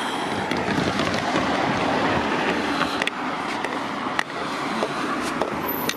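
A car drives past close by over the level crossing, with a steady rush of tyre noise on the wet road and a few light clicks.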